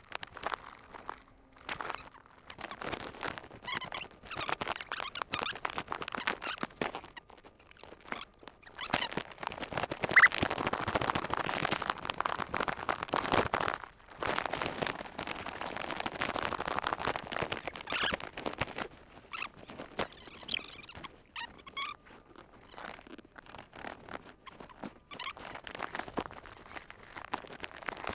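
Irregular crunching and rustling of dry leaf litter and brush as someone pushes through forest undergrowth, with scattered small cracks and squeaks, louder in the middle stretch.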